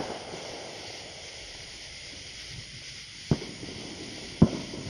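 Three firecracker bangs: one at the start, then two about a second apart near the end, the last the loudest. Each trails off in an echo over a steady hiss.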